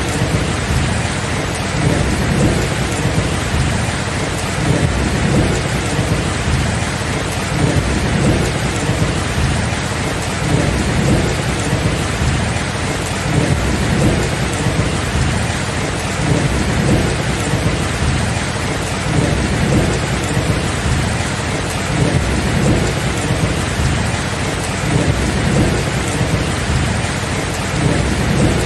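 Steady heavy rain with low, rolling thunder rumbling underneath in repeated swells.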